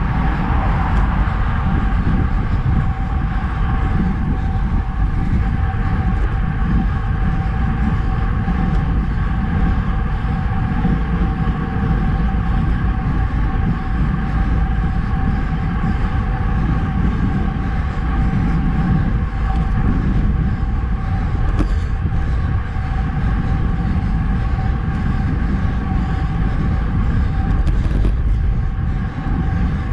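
Wind rushing over a bike-mounted camera while a road bike rolls at speed on Roval Rapide CLX64 deep-section carbon wheels, with a steady hum of the tyres on asphalt.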